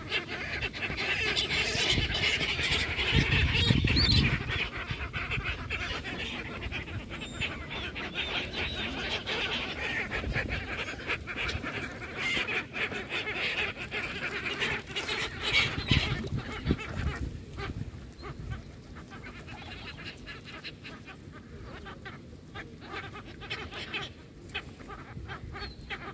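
A feeding flock of gulls and ducks calling on the water, with splashing and flapping among them; the calling thins out about two-thirds of the way through.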